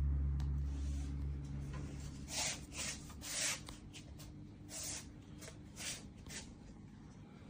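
Handling noise: a run of short rubbing and scraping sounds, about eight in four seconds, as a GoPro Hero12 action camera on a tripod grip is moved about by hand. Under them is a low hum that fades out over the first few seconds.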